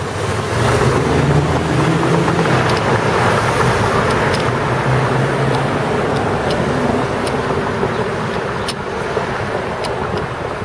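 Steady city traffic and road noise heard while moving along a street, with a low rumble and a few sharp light clicks.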